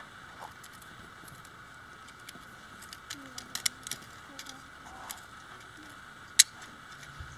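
3D-printed plastic gear and spiral spring handled and fitted together: scattered light plastic clicks and taps, then one sharp click a little after six seconds in, over a steady hiss.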